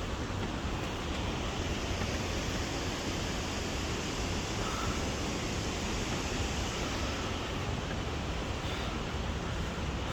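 Steady roar of rushing water: a mountain gorge stream and waterfall.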